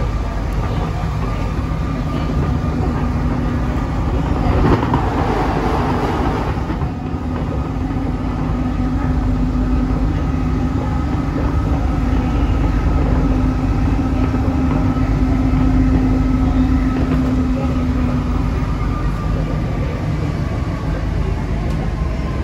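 Interior running noise of an Alstom NS-16 rubber-tyred metro train travelling between stations: a continuous rumble of the tyres and running gear. A steady hum runs under it and stops near the end, and there is a brief louder rush about five seconds in.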